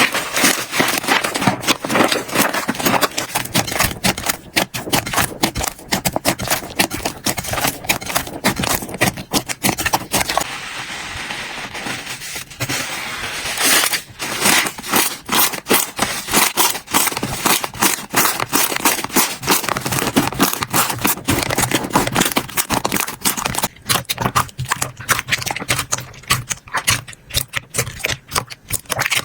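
Slime being squeezed, poked and stretched by hand: dense crackling and popping clicks, with a smoother, more even stretch of squishing about ten seconds in.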